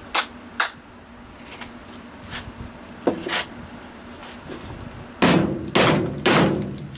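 Hammer striking the round head of a carriage bolt to drive it into a piece of wood: a few lighter knocks first, then three hard blows close together near the end that seat the bolt's head flush so its square neck holds it from turning.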